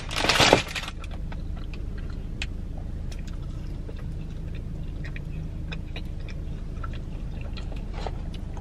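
Soft chewing of a pizza puff with faint scattered mouth clicks, over the steady low hum of a car running, heard inside its cabin. A brief loud mouth noise comes right at the start.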